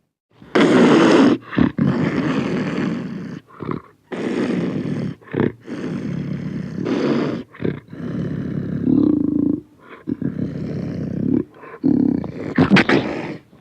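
Tiger roaring and growling: a run of loud roars, each about one to two seconds long, separated by short breaks.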